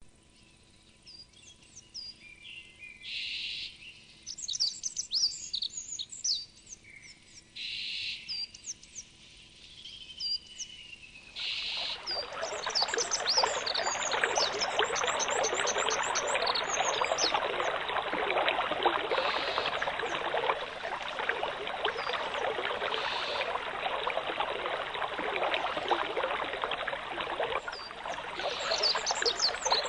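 Small birds chirping and trilling in short, scattered calls. About a third of the way in, the steady rush of a flowing river or stream comes up and carries on under the birdsong.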